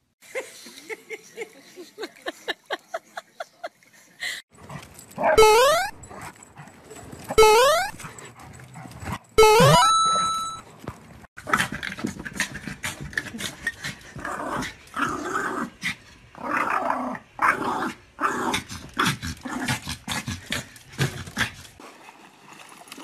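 Small dogs vocalizing. A string of quick short sounds comes first, then three loud rising squeals about two seconds apart, then a long busy run of short calls.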